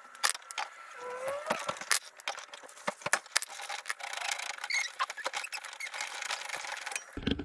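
Ratchet wrench clicking and metal clinking while the bolt that holds a riding mower's cutting blade to its spindle is loosened and unscrewed; the clicks come irregularly, some short runs and some single sharp knocks.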